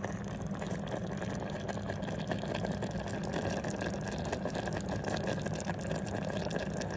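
A pot of string beans and potatoes simmering, a steady bubbling crackle with a low hum underneath.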